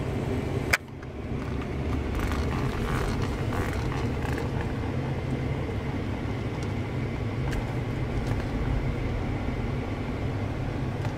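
Steady low rumble of a train rolling slowly past, heard from inside a car, with one sharp click about a second in.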